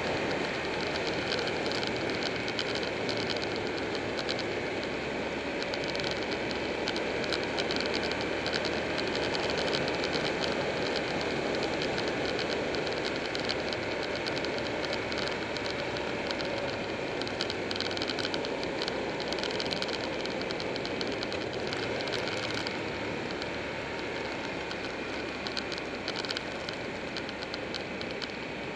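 Steady rush of riding wind over a bike-mounted camera's microphone, with the Buell 1125R's V-twin engine running underneath while under way; the noise eases slightly near the end.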